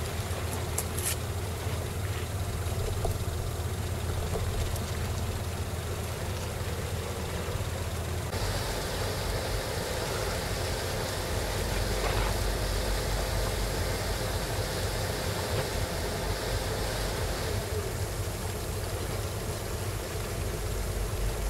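Outdoor ambience carried by a steady low engine hum with a faint hiss over it. About eight seconds in the hum abruptly shifts lower, and a higher hiss joins it for about the next nine seconds.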